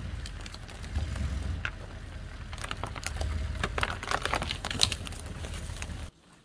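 Pickup truck reversing slowly over brush: a steady low engine rumble with the tyres crackling and snapping over twigs and wood chips. The sound cuts off sharply near the end.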